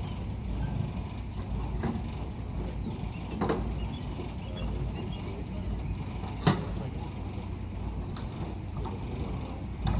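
Aircraft tow tractor running with a steady low rumble while it moves a helicopter, with a few sharp knocks, the loudest about six and a half seconds in.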